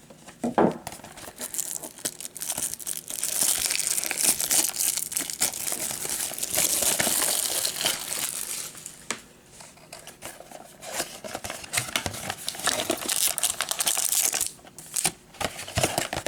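Plastic wrapping crinkling and tearing as a trading-card box is unwrapped and opened. It comes in two long stretches, with a few sharp clicks and taps between and around them.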